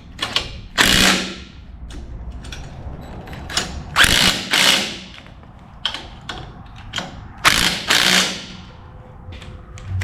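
Impact driver with a deep-well socket on a long extension running nuts down onto caster bolts in about five short bursts, with small clicks of the tool and hardware between them.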